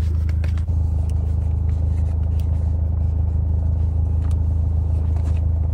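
Steady low drone of a car idling, heard from inside the cabin, with a few faint clicks over it.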